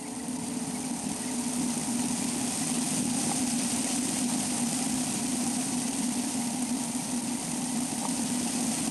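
Car driving, heard from a camera mounted on its roof: a steady engine hum with wind and road noise, growing a little louder over the first couple of seconds and then holding steady.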